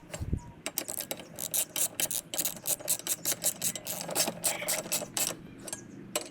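Socket ratchet wrench clicking in quick runs of sharp clicks as bolts are turned with a socket and extension.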